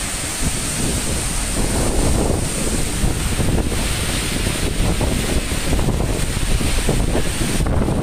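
Waterfall rushing steadily, with wind buffeting the microphone.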